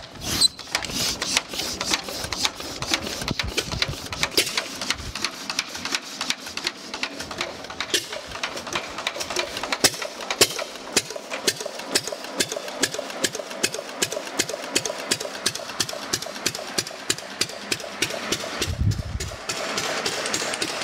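Fairbanks-Morse Model ZC 118 oil-field engine, a throttle-governed single-cylinder engine fuelled by propane, catching just after being cranked by hand at the flywheel. It then runs unloaded with an even, rapid clatter of firing strokes.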